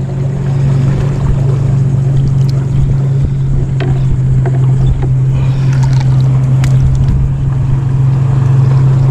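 Steady low drone of a motorboat engine running, with a few light clicks and water splashes as a hand reaches into a live-bait bucket.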